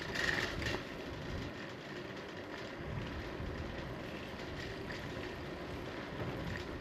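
Wind buffeting a bicycle-mounted camera's microphone, with the low uneven rumble of tyres rolling on asphalt while riding. A brief higher-pitched sound stands out in the first second.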